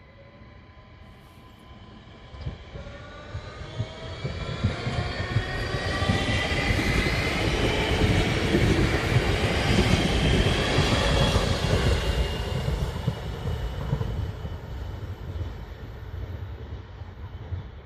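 ÖBB Cityjet electric multiple unit pulling away, its traction motors whining in several tones that rise steadily in pitch as it accelerates, over the rumble of wheels on rail. It grows louder to a peak about halfway through, then fades as the train moves off.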